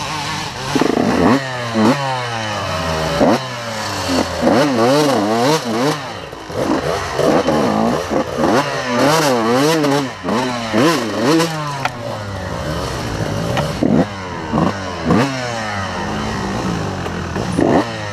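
2002 Honda CR125's two-stroke single-cylinder engine being ridden hard, revving up and down over and over with sharp throttle blips and quick rising and falling swings in pitch.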